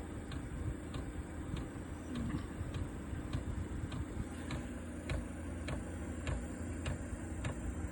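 Diesel heater's fuel dosing pump ticking steadily, about three clicks a second, over the low hum of the heater's fan. This is the startup phase, with fuel being pumped in before the heater ignites.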